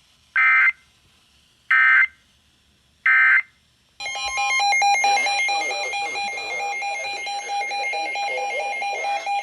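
Emergency Alert System data signal: three short, harsh digital bursts, the end-of-message code that closes a weather warning. About four seconds in, a loud alert tone starts and keeps sounding, one steady tone with a higher tone stepping rapidly up and down above it.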